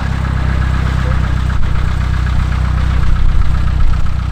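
Cessna 152's four-cylinder Lycoming piston engine running at a steady drone.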